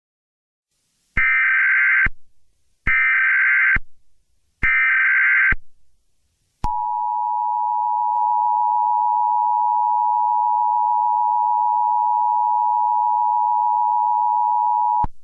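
Emergency Alert System tones: three short bursts of SAME header data, each about a second long, followed by the steady two-tone attention signal, which holds for about eight seconds and cuts off near the end.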